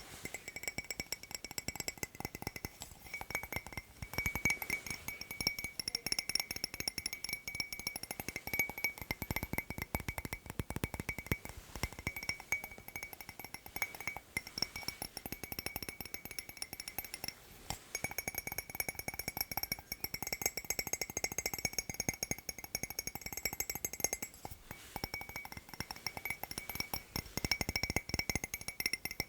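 Fast tapping on hard objects: a dense, continuous run of small clicks and clinks, with a thin high ringing note held over them.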